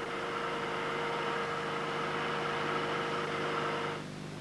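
Steady machine-like hum made of several held tones, which drops away about four seconds in and leaves a fainter steady hum.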